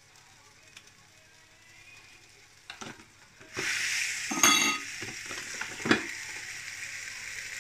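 Batter with minced meat and cheese sizzling in a hot electric waffle maker, starting suddenly about three and a half seconds in when the lid is shut and then going on as a steady hiss. A clatter from the lid comes just after it closes, and a single knock about a second and a half later.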